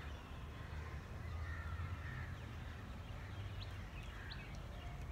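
Crows cawing in the background, with a few short, high bird chirps in the second half over a low, steady rumble.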